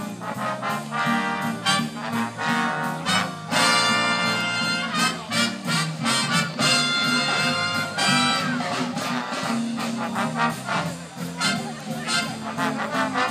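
Live swing big band playing: the trumpets and trombones carry the tune over a stepping bass line and a steady drum beat.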